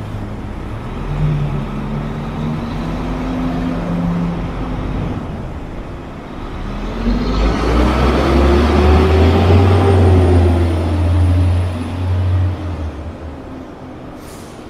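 Heavy diesel truck engine running, growing louder about halfway through as its note rises and falls back, then fading near the end.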